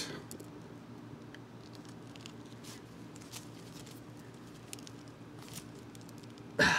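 Knipex cable cutter being squeezed slowly through 2/0 copper cable: faint scattered crunching and ticking as the strands give way, then a sudden loud snap near the end.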